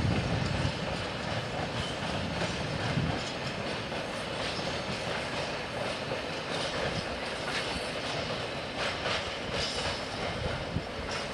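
Freight train of covered grain hopper wagons rolling past, wheels clattering over the rail joints above a steady rumble that is heaviest in the first few seconds.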